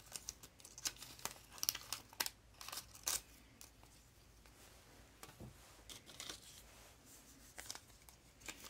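Old paper and cardboard needle packets being handled and unfolded: a quick run of crinkles and rustles over the first few seconds, then quieter, with a few more rustles near the end.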